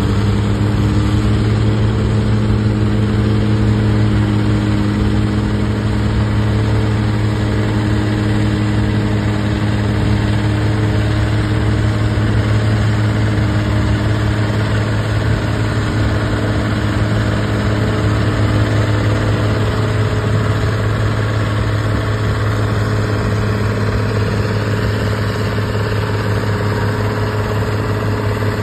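Allis-Chalmers farm tractor's engine running hard under load as it drags a weight-transfer sled, holding a low, even note that barely changes pitch.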